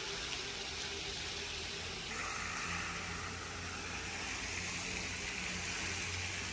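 Water running steadily in a steady rushing hiss, growing brighter about two seconds in.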